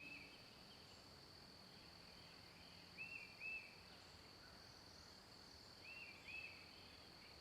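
Faint outdoor ambience: a steady high-pitched insect drone, with a bird giving two short arched notes twice, about three seconds in and again about six seconds in.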